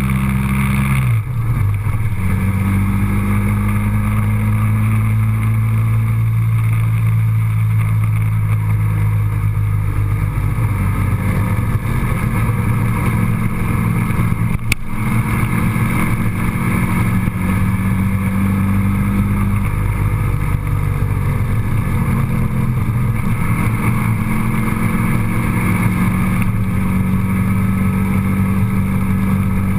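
Road vehicle's engine droning steadily while driving, its pitch shifting a few times as it changes speed or gear, with a short click about halfway through.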